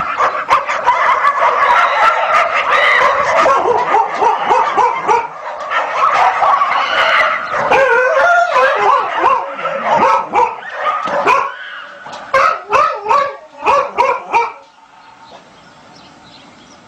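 A pack of dogs barking and yelping over one another, in a thin, bass-less sound; the barking stops about two seconds before the end.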